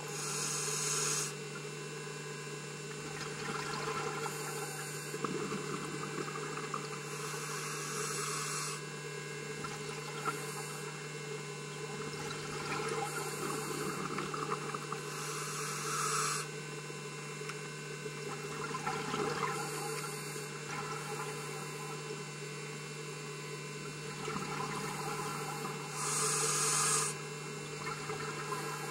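Scuba diver breathing through a regulator, recorded underwater: bursts of exhaled bubbles rush and hiss every few seconds over a steady low hum.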